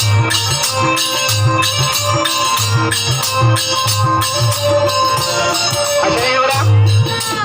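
Instrumental interlude of a live sohar folk-song band: a steady low drum beat about two times a second, fast jingling percussion on top and sustained melodic tones underneath.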